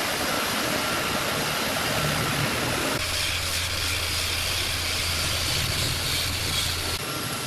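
Woodworking power tool running steadily with a loud, even noise. A low hum comes in about three seconds in and drops out shortly before the end.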